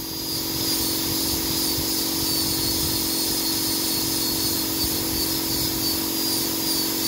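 Dental drill (high-speed handpiece) running steadily against a tooth, a thin, slightly wavering high whine with the hiss of its air and water spray over a steady low hum, as the tooth is ground down for a porcelain crown.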